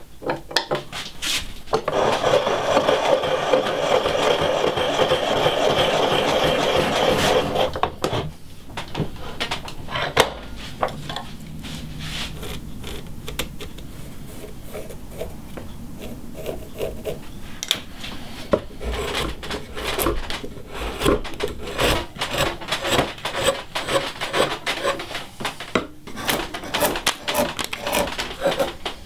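Hand woodworking. A drill bit boring into a wooden block gives a steady grinding for about five seconds. A carving gouge then pares the wood in short scrapes and clicks, which quicken into many rapid cuts and knocks near the end.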